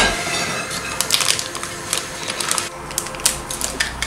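Plastic bag crinkling and crackling as it is handled and cut open with scissors: a run of short, irregular crackles.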